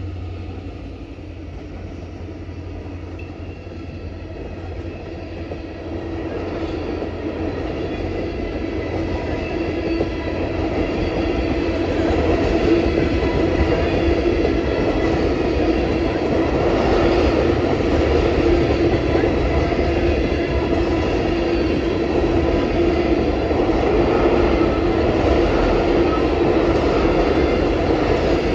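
Freight train of tank cars rolling downhill past at close range: a steady rumble of steel wheels on rail with clickety-clack and a steady ringing tone, growing louder over the first dozen seconds and then holding.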